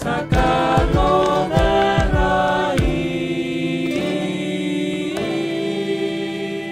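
Group of voices singing together in harmony over acoustic guitars, with regular drum strokes that stop about halfway through; the voices then hold a long chord that thins out near the end.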